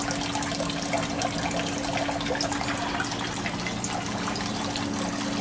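Water running and trickling steadily as the pump inflow fills an aquaponics grow bed, the bed not yet full enough for the siphon to trigger. A steady low hum runs underneath.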